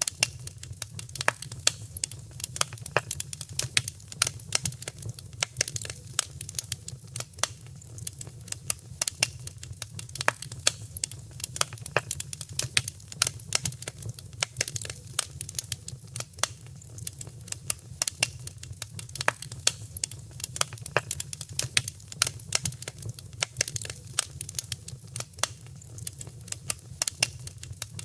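Fireplace fire crackling, with frequent irregular sharp pops over a steady low rumble of flames.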